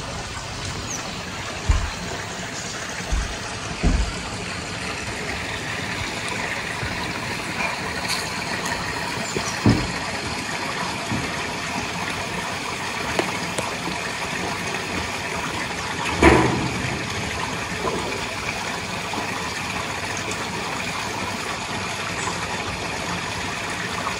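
Steady rush of running water, with a few short low thumps and one louder knock about sixteen seconds in.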